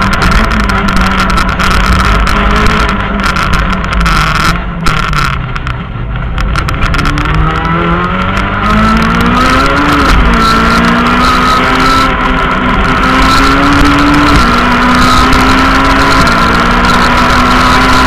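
Rally car engine heard from inside the cabin at speed: the revs fall away and the engine goes quieter for a second or two about five seconds in, then it accelerates hard, the pitch climbing and dropping back at upshifts about 10, 14 and 16 seconds in, over constant road and tyre noise.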